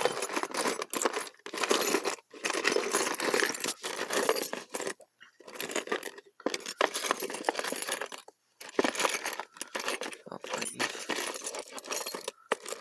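A bunch of metal keys jangling and clinking as they are handled and sorted by hand, in bouts broken by a few short pauses.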